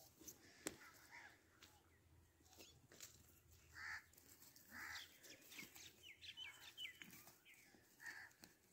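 Faint crackling and rustling of dry crop stubble as puppies pick their way through it. A few short, high calls come through, with a quick run of little chirps about six seconds in.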